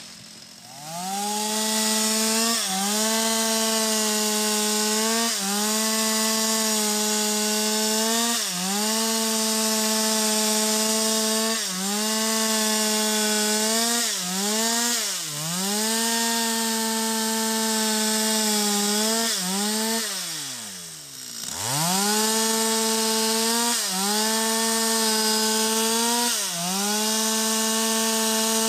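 Stihl MS 250 two-stroke chainsaw revving up and cutting into the base of a sengon tree at full throttle, its pitch dipping briefly every few seconds. About twenty seconds in, the engine drops nearly to idle, then revs back up and keeps cutting.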